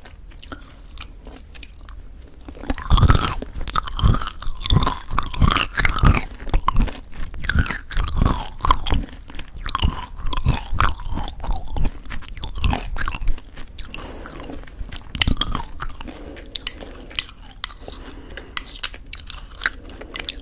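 Close-miked chewing of crunchy granola mixed into thick yogurt: a dense run of crunches that grows loud about three seconds in and softens about fifteen seconds in.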